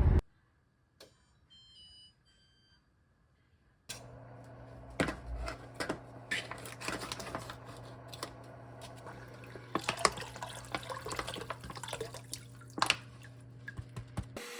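After a few seconds of near silence, water runs and drips with many small clicks and knocks over a low steady hum.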